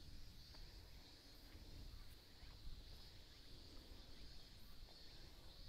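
Near silence: quiet outdoor ambience with a steady faint high-pitched hum and a low rumble.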